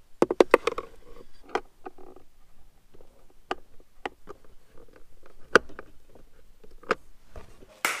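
Irregular sharp plastic clicks and taps as the center console trim is pressed into place and screwed down by hand: a quick cluster near the start, then single clicks every second or so.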